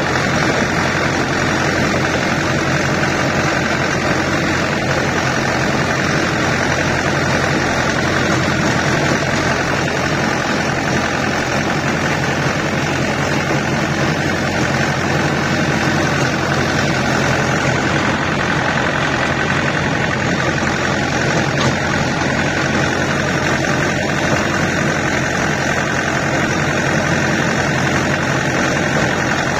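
Farm tractor's diesel engine running steadily with no change in speed, heard close up from the driver's seat while the tractor is driven.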